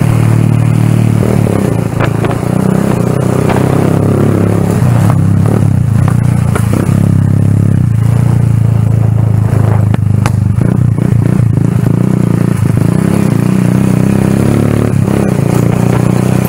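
Motorcycle engine running steadily while riding at road speed, its pitch rising and falling a little with the throttle. Occasional rattles come through along the way.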